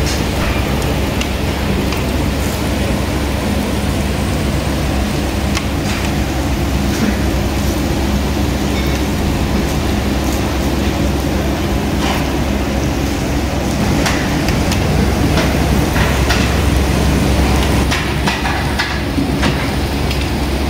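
Meat sizzling and crackling on a tabletop barbecue grill over a steady low mechanical hum, with scattered small ticks.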